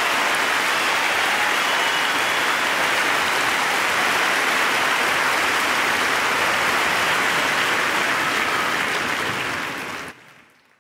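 Crowd applauding steadily, fading out about nine seconds in and then cutting off.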